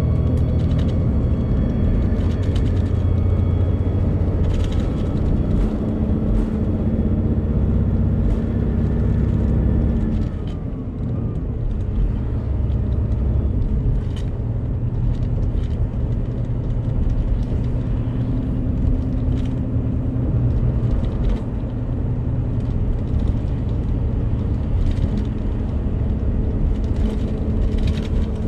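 Cabin sound of a Daewoo FX116 coach's rear-mounted Doosan DL08S inline-six turbodiesel running steadily at road speed, with road and tyre noise. About ten seconds in the engine note falls and the sound drops briefly, then it runs on at a lower pitch.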